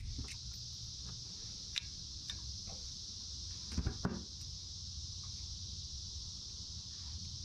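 Steady high-pitched cicada drone over a low hum. Small metal clicks and clinks come as a C-clip is pried off the parking-brake lever and the old rear drum brake shoe is pulled free, with a cluster of clinks about four seconds in.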